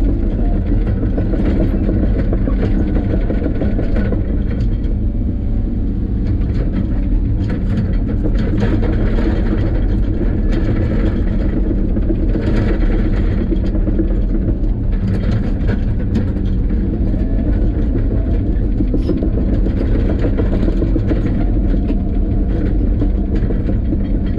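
Steady, loud low rumble of a running vehicle, unbroken throughout.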